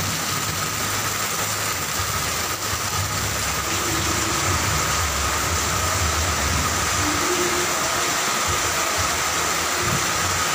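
Steady rushing noise of fast-flowing floodwater and heavy rain, with a low rumble that grows stronger through the middle.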